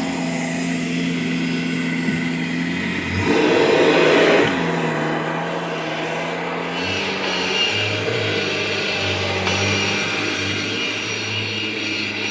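1998 Kirby Generation 5 upright vacuum cleaner running with a steady motor hum. A louder rushing surge lasts about a second, a few seconds in, and the hum drops in pitch about seven seconds in.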